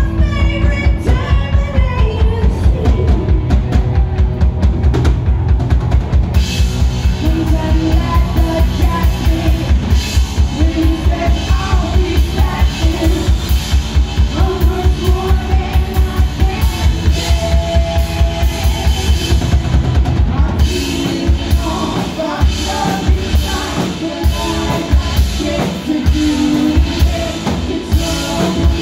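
A live rock band playing loud: electric guitars, bass, a drum kit driving a fast, steady beat, and a singer. About twenty seconds in, the steady drumming drops out into a looser, broken rhythm.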